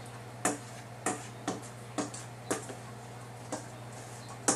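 Metal spoon scraping and knocking against a stainless steel bowl as thick sauce is scraped out, about eight short clicks at uneven intervals.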